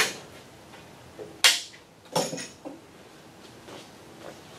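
Three sharp metallic clanks of hand tools being picked up and set down: one right at the start, then two close together about a second and a half and two seconds in, the last with a brief ring.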